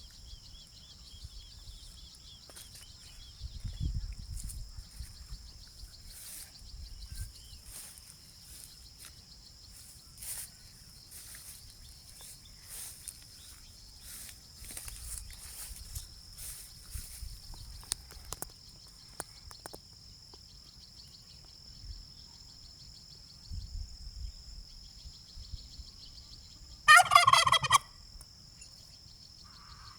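Domestic turkey tom gobbling once, a loud, rapid warbling call about a second long near the end, over a faint, steady high-pitched background.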